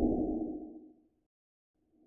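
Low whooshing sound effect that fades out about a second in, followed by a short silence and a second whoosh starting to swell at the very end.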